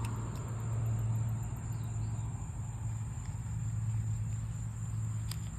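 Outdoor ambience: a steady low hum, like distant road traffic, with a thin, high, steady insect trill above it and a few faint clicks.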